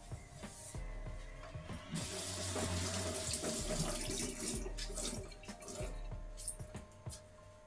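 Water running from a tap into a sink, growing stronger about two seconds in and shutting off a few seconds later, with a few light knocks.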